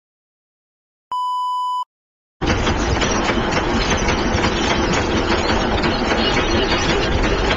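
A single steady beep-like tone lasting under a second, then after a brief silence a steady, dense engine-like rumble starts about two and a half seconds in and keeps going.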